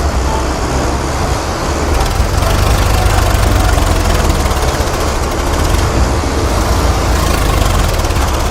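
An engine running steadily with a low rumble, a little louder from a couple of seconds in.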